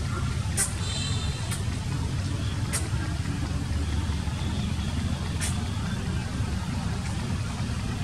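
Steady low outdoor rumble, with a few faint sharp clicks and a brief high chirp about a second in.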